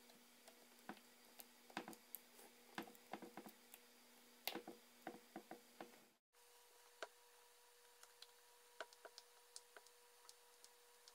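Faint, irregular small clicks and taps of a screwdriver and small parts being handled on an opened iPhone 4S during reassembly, over a steady low hum. The sound cuts out briefly about six seconds in.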